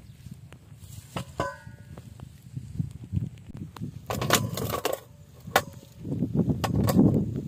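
Eggs being set down into a stainless steel bowl, clicking and clinking against the metal and against each other, with the bowl ringing briefly about a second in. A low rustle of handling over dry grass is loudest near the end.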